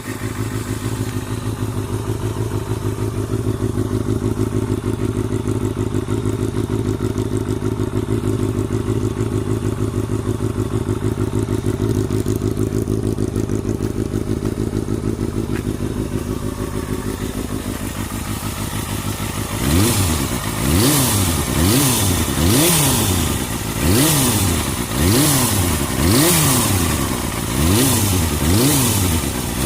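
Kawasaki Balius II's 250 cc inline-four engine idling steadily, then blipped repeatedly from about two-thirds of the way in, each rev rising and falling again about once every second and a half.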